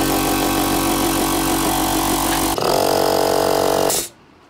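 Small single-phase 220V piston air compressor running under load, pumping its tank up but stalling around 6 bar without reaching the 8 bar at which the pressure switch should cut out. Its tone changes about two and a half seconds in, and it stops abruptly near the end, switched off by hand at the pressure switch.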